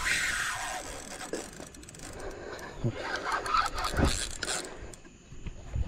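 Handling noise: scraping and rubbing close to the microphone, with a couple of dull knocks partway through.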